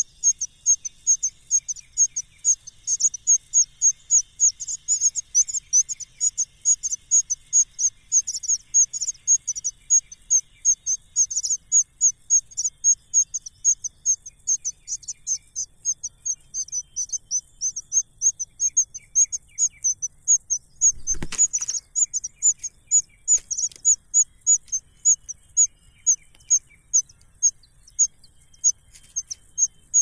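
Nestlings begging with a rapid, steady string of short, high-pitched chirps, about three a second, swelling and fading as they are fed. A brief thump about two-thirds of the way through.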